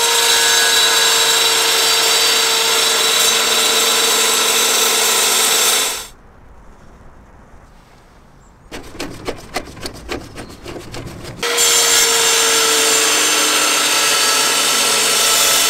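Benchtop table saw running and ripping a strip of dark hardwood, a steady motor hum under the cutting noise. It cuts off about six seconds in; after a quiet gap a quick run of light ticks comes, and the saw is heard running and cutting again from about eleven and a half seconds.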